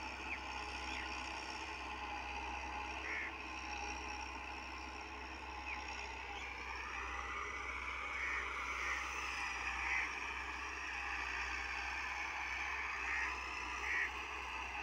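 Distant Massey Ferguson 385 tractor's four-cylinder diesel engine working under load while pulling an 11-tine cultivator: a steady drone whose pitch dips and rises slightly. A few short chirps sound over it.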